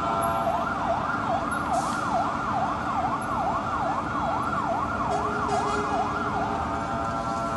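Fire engine siren in a fast up-and-down yelp, about two sweeps a second, switching to a steady held tone near the end, over continuous street noise.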